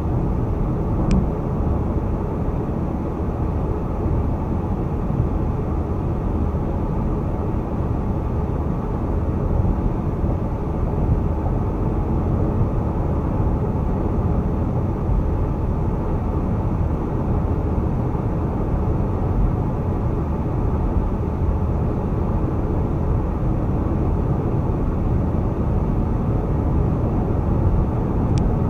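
Car driving at highway speed: a steady low rumble of road and tyre noise. Two faint short ticks sound about a second in and near the end.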